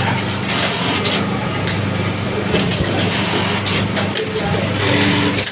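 Steady hum of an automatic button feeder's vibratory bowl on a button-sewing machine, over a continuous wash of workshop machine noise.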